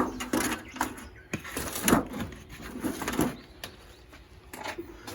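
Wire barbecue-grill mesh handled and set down over a strawberry bed: an irregular run of light metallic clinks and scrapes, busiest in the first few seconds.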